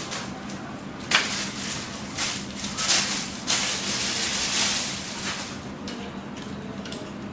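Thin clear plastic bag crinkling and rustling as sunglasses are unwrapped from it by hand. There is a sharp crackle about a second in, and the rustling is densest through the middle and dies down after about five and a half seconds.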